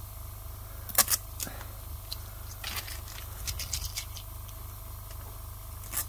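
Short crackles and clicks of paper masking tape and a styrene sheet being handled, the loudest about a second in, with another as a tape strip starts to be peeled off near the end. A steady low hum runs underneath.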